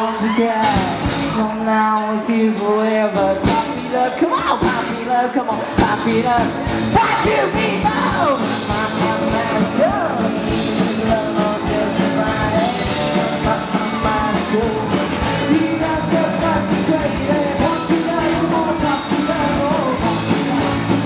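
Live band playing an upbeat blues-rock song: a lead vocal sung over strummed acoustic and archtop guitars, electric guitar and drums.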